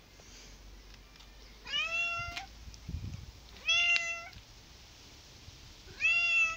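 Domestic cat meowing three times, about two seconds apart, each meow about half a second long, rising at the start and then holding level.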